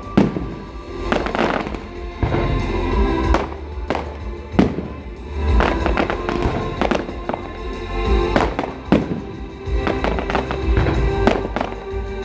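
Fireworks display: shells bursting with sharp bangs about once a second, over music.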